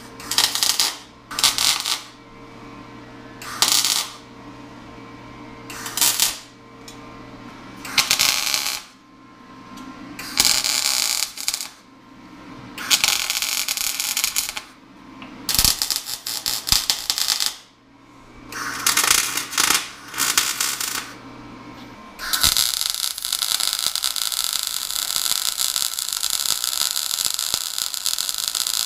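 MIG (wire-feed) welder arc crackling as a steel mounting plate is welded: about a dozen short tack welds of a second or so each over a steady low hum, then from near the end one long continuous bead.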